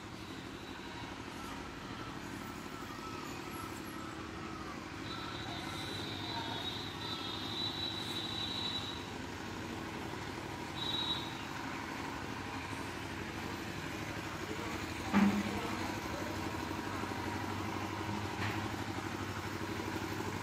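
A steady low engine hum, with a thin high whistle-like tone for a few seconds about a third of the way in and a single sharp knock about fifteen seconds in.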